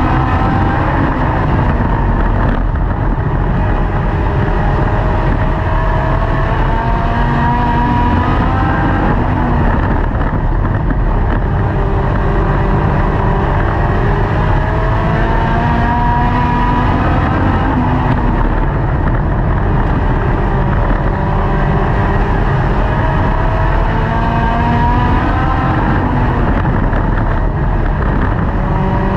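Dirt-track race car's engine heard from inside the car at racing speed, loud throughout, its pitch climbing and falling back several times as it laps the oval.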